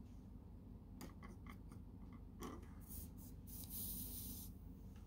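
Faint handling noise: a few light clicks and taps, then a soft rubbing hiss lasting about a second, starting about three and a half seconds in.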